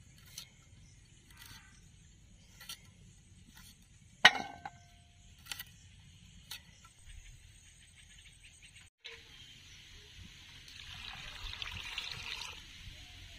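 Sharp snaps of crisp amaranth stems being cut with a handheld blade, one much louder than the rest about four seconds in. After a break, water is poured over chopped pumpkin and stems in a steel bowl, a steady rushing splash lasting about two seconds near the end.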